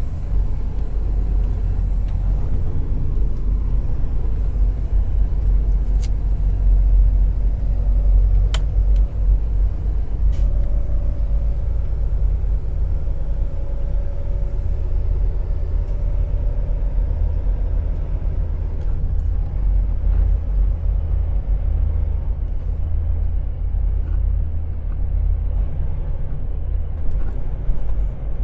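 Semi-truck's diesel engine running with a steady low rumble, with a couple of faint clicks partway through.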